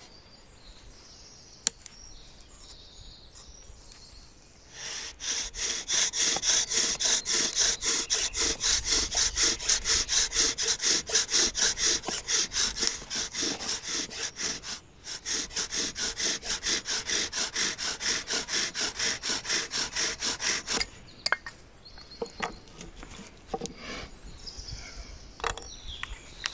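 Bow drill in use: a wooden spindle spun back and forth in a wooden hearth board by a corded bow, wood rubbing on wood in fast, even strokes of about four a second, starting about five seconds in with one brief break midway and stopping about 21 seconds in. This is the drilling for an ember. After it stops come a few light knocks and rustles.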